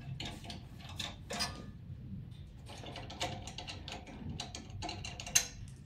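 Small metallic clicks and scrapes as the thumb screws holding a business card cutter's blade cassette are turned loose by hand. There is one sharper click near the end.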